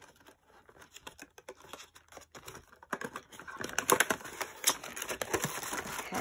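Cardboard packaging being handled: a small cardboard box scraping and tapping as it is worked out of a tightly packed gift box, with crinkling wrapping paper. The rapid little clicks and rustles are sparse at first and get busier and louder about three seconds in.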